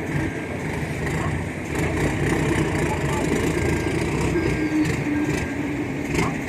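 Heavy diesel truck engines running steadily, with a faint murmur of voices behind.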